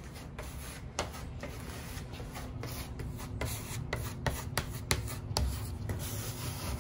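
Small plastic spatula scraping and pressing wood filler into the cracks and screw holes of a wooden 2x6 table top, in short, irregular scraping strokes.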